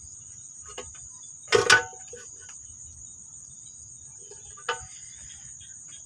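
A steady, high-pitched insect chorus trilling without a break. A loud knock comes about one and a half seconds in, and a sharp click a little before the end.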